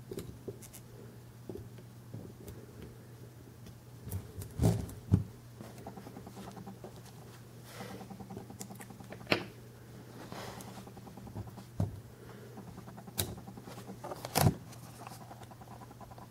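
Scattered small clicks and knocks of a 1/50 scale die-cast concrete mixer model's plastic and metal chute parts being handled and set in place, the loudest about four and a half seconds in and again near the end, over a steady low hum.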